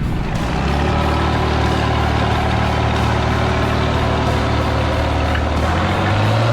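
Tractor engine running steadily, its pitch stepping up near the end.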